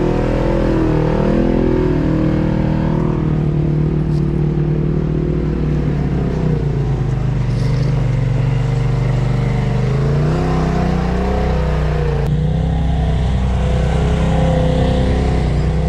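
Polaris RZR side-by-side's engine under load as it crawls up a steep, rutted dirt climb, revving up and down. Its pitch drops about six seconds in and rises again near ten seconds.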